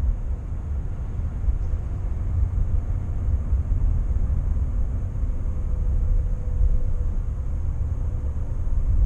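Steady low rumble of a Škoda car's engine and tyres on the road, heard from inside the cabin while driving.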